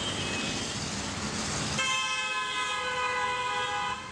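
Street traffic noise, then about two seconds in a vehicle horn sounds one long steady blast of several tones at once, which stops abruptly near the end.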